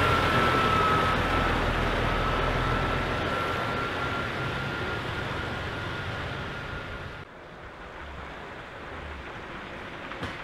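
Scania trucks driving past with their diesel engines running, with a steady high tone over the engine noise; the sound fades as they pull away. About seven seconds in it cuts to a quieter, even background.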